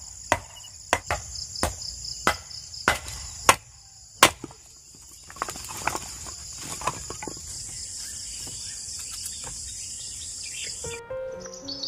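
Firewood being chopped: sharp strikes on wood about every 0.6 s for the first four seconds, then softer clattering of wood pieces being gathered and stacked. A steady high chirring of crickets runs underneath, and music starts near the end.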